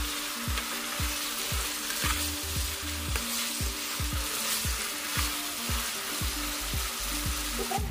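Marinated chicken pieces and onions sizzling in hot oil in a non-stick frying pan, stirred and turned with a metal slotted spatula.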